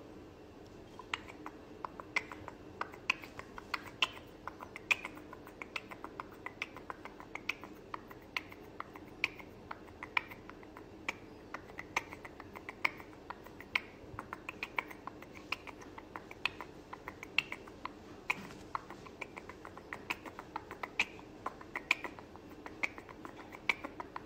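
Fingers tapping on a smartphone's touchscreen right by its microphone: a long run of quick, irregular taps, several a second.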